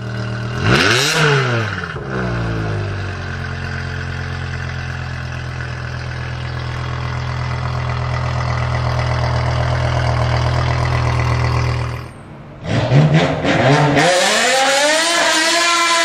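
BMW M5 E60's 5.0-litre S85 V10 at the exhaust: a quick rev that rises and falls about a second in, then a steady idle. About twelve seconds in the sound cuts to the car in a tunnel, where the revs climb and then hold high as the rear tyres spin in a burnout, echoing off the tunnel walls.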